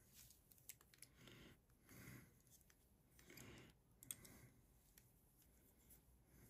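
Faint clicks and soft rustling of small plastic parts as beard-trimmer comb attachments are handled and fitted onto the trimmer, with a sharper click about four seconds in.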